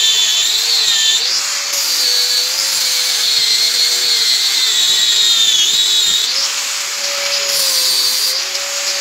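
Angle grinder grinding rust off a steel axe head. The motor's steady high whine wavers in pitch as the disc is worked against the metal.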